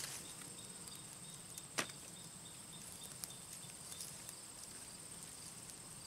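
Faint, steady high-pitched insect drone, with a sharp click just under two seconds in and a few softer ticks from hands working through loose garden soil.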